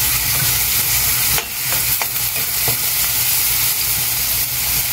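Chopped vegetables sizzling in hot oil in a stainless steel pan, stirred with a metal slotted spoon that taps against the pan a few times.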